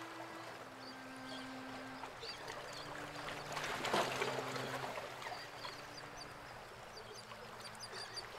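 Sea washing against a rocky shore, a steady rush that swells briefly about four seconds in, with faint low held notes underneath and scattered short high chirps.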